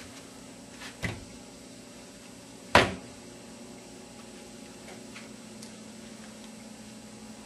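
A couple of soft clicks about a second in, then one sharp knock near three seconds, over a low steady hum.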